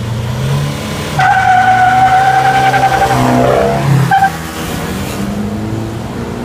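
Isuzu D-Max pickup with an aftermarket exhaust accelerating, its engine running with a deep exhaust note. About a second in, a high steady whine joins it for about three seconds and this is the loudest part; then the sound settles back to a steady drone.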